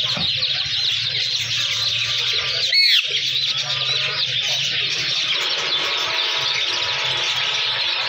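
Dense, continuous chirping of many small birds, with one loud squawk from a ringneck parrot that slides down in pitch just under three seconds in.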